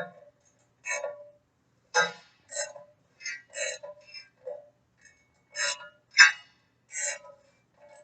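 Ratchet wrench worked in short strokes on a bolt: a string of separate metallic clicks and clinks with a brief ring, about one to two a second.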